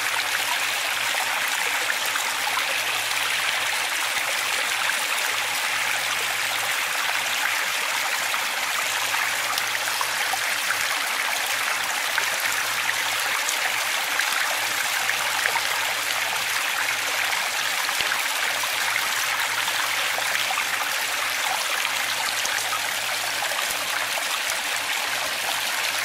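Small waterfall cascading over stepped rock ledges: a steady, even rush and splash of falling water.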